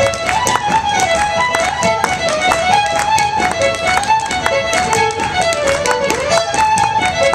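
Solo fiddle playing a fast Celtic step-dance tune, with the dancer's feet tapping out quick steps on the floor throughout.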